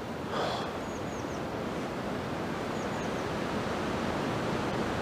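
Steady wind rushing over the microphone, with a small bird repeating a quick high three-note chirp a couple of times.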